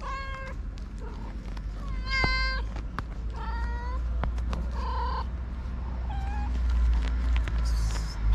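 Hungry street kittens meowing for food: about five high-pitched meows a second or so apart, over a steady low rumble.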